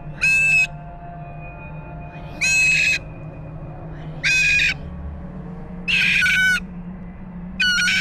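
Umbrella cockatoo screaming: five loud, harsh calls, each about half a second long, repeated roughly every two seconds.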